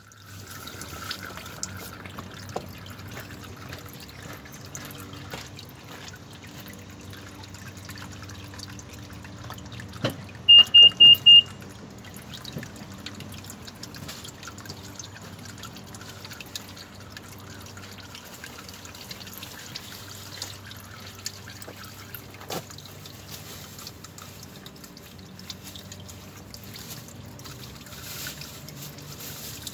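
CVT transmission fluid trickling and dripping from the opened transmission into a drain container. About a third of the way in, four quick high-pitched beeps sound, louder than anything else.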